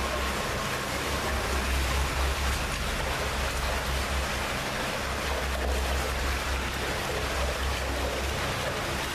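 Flowing water in a tunnel, heard as a steady rushing hiss, with a low rumble that swells and fades underneath.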